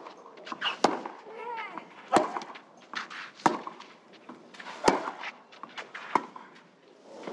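Tennis rally: rackets striking the ball back and forth, about five sharp hits roughly every second and a quarter, with players' grunts on the first strokes.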